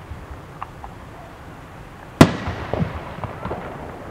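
Aerial firework shell bursting with one loud bang about two seconds in, its rumble trailing off, followed by a scatter of smaller pops.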